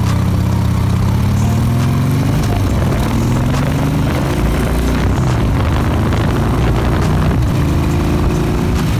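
Harley-Davidson Sportster's air-cooled V-twin engine running under way. Its note rises as it accelerates, drops at a gear change about three seconds in, rises again, and then holds steady at cruising speed.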